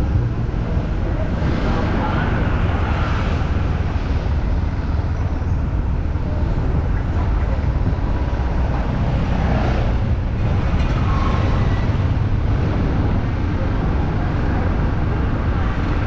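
City street traffic noise heard while riding through town: a dense, steady low rumble with brief swells from passing vehicles.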